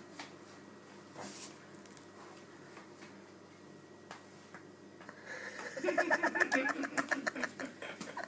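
A few faint taps, then from about five seconds in a person laughing hard in quick, breathy pulses.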